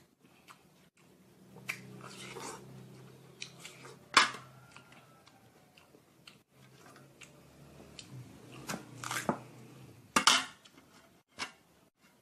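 A person eating watermelon close to the microphone: crisp crunching bites into the rind and wet chewing, with two loud crunches, about four seconds in and again near ten seconds.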